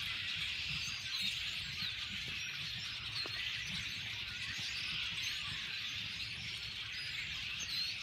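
A large flock of birds in bare treetops calling all at once: a steady, dense chorus of many overlapping high chirps and squeaky calls.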